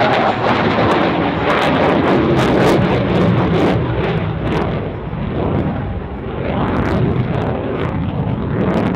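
F/A-18F Super Hornet's twin turbofan jet engines at high power as it rolls and pirouettes: a loud rumble with a ragged crackle, swelling and easing as the jet turns.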